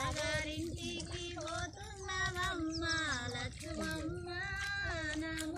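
Women's voices singing, holding notes and sliding between them.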